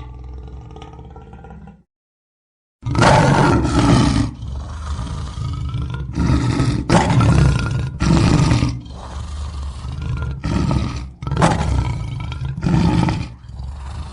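Lion roaring: a fading call, then a short gap of dead silence about two seconds in, then a run of loud, deep roars and shorter grunting calls, one after another.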